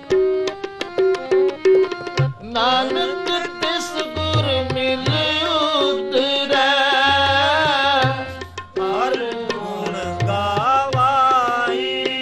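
Sikh kirtan: a harmonium holds steady notes over tabla strokes. About two and a half seconds in, a male voice joins, singing long, wavering notes without clear words; it breaks off briefly past the middle, then sings on.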